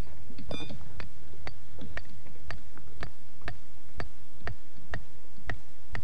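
Steady, clock-like ticking, about two sharp ticks a second, with a short beep just after the start.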